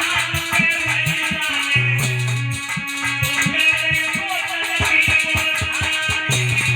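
Instrumental music with no singing: a plucked-string melody over held bass notes and a steady, quick percussion beat.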